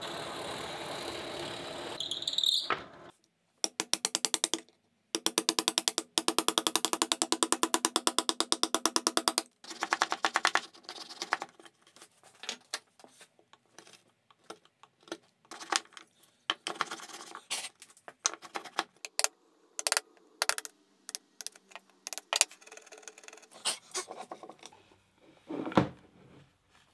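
Workshop sounds in quick succession. A drill press runs and bores into an aluminium plate for the first few seconds. Then come several seconds of fast, even rattling strokes, followed by scattered sharp taps and knocks as a chisel cuts into wood and the metal plate is handled.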